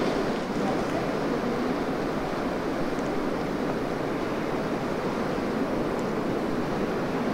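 Steady rush of sea surf and wind, with a few faint, short high-pitched sounds over it.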